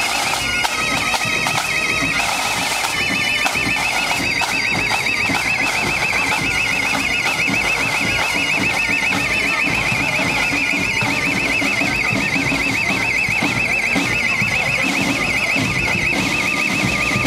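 A high warbling tone, like an electronic alarm, wobbling rapidly in pitch and sounding without a break.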